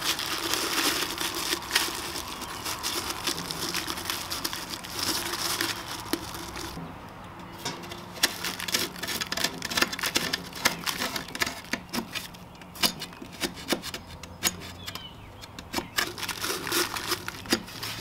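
Set aircrete being broken and scraped out of a cast furnace body. First come fingers crumbling it against a crinkling plastic bag liner, then a metal scraper blade chipping and scraping at it in a run of sharp clicks and scrapes.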